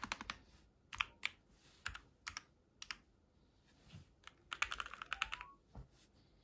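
Keys of a Keychron V4 mechanical keyboard being typed, sharp clicks in short irregular groups with a faster flurry about four and a half seconds in.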